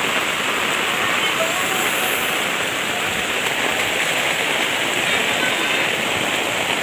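Steady rush of water, even and unbroken, typical of heavy floodwater flowing.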